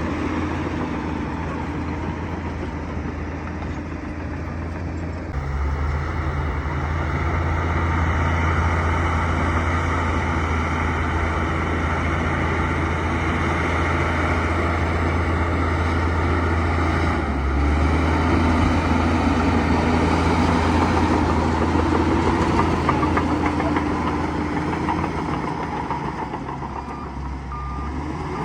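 Bulldozer's diesel engine running hard under load, a steady heavy drone that gets louder about five seconds in and holds there.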